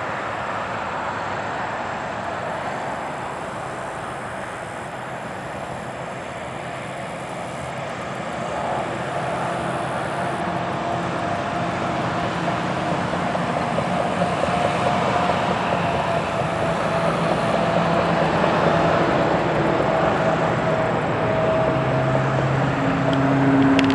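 Road traffic: the steady rush of passing vehicles, growing louder over the second half, with an engine hum that comes in about a third of the way through.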